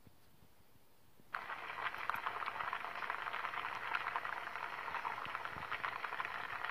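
Pot of chicken broth for pulao boiling hard, a dense bubbling crackle that starts suddenly about a second in and then holds steady.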